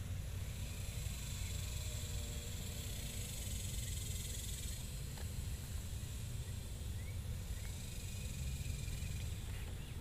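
Outdoor garden ambience: a steady low rumble with a faint high hiss over it, and a few short faint chirps a little after the middle.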